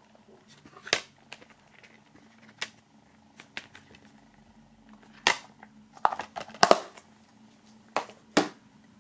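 Plastic DVD keep case being handled: irregular clicks and knocks of its hinged disc trays and discs, with a quick cluster a little past the middle and two sharp clicks near the end.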